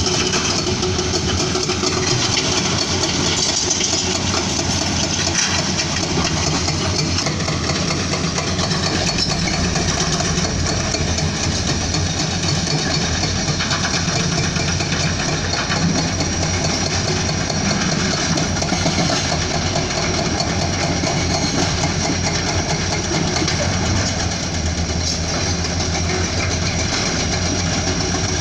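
Heavy diesel engine of a Komatsu PC210-10MO excavator running steadily as it works, its low rumble deepening about nine seconds in.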